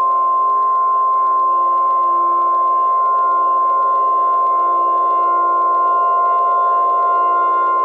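Emergency alert attention tone: one loud, steady, high beep held without a break, over sustained ambient synth music.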